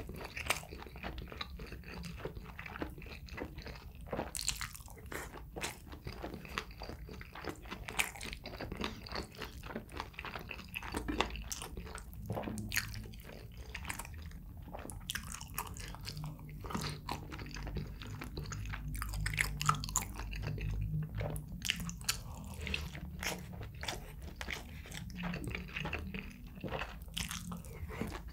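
A person chewing and biting food close to the microphone, with a steady run of small sharp wet mouth clicks. A low drone runs under it for a few seconds past the middle.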